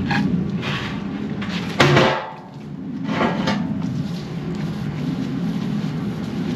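A heavy steel plate being lowered onto a steel welding table. It lands with one loud metal bang about two seconds in, followed by shorter knocks and scrapes of steel on steel as it is pushed into place, over a steady low hum.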